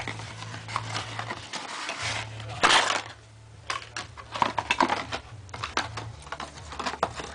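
Packaging being handled as a power adapter is pulled out of its cardboard box: scattered clicks, taps and rustles, with one louder rustle about two and a half seconds in, over a steady low hum.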